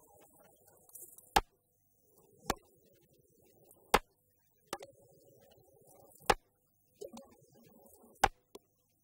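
Djembe hand drums struck with single sharp hits about one to two seconds apart, with quieter scattered drum taps between the strikes.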